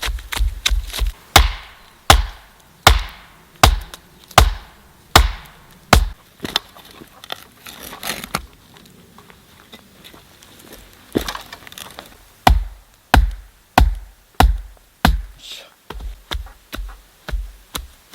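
Repeated blows of a hand tool striking wood: a quick run of lighter strikes, then heavy single blows about one every three-quarters of a second, a pause, and another run that speeds up near the end.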